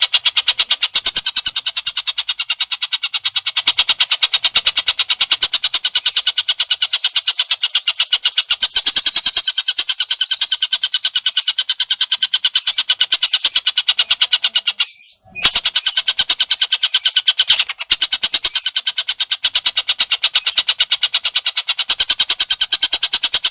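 Recorded songbird song for training cage birds: a fast, even, chattering trill of rapidly repeated notes, breaking off briefly about fifteen seconds in before carrying on.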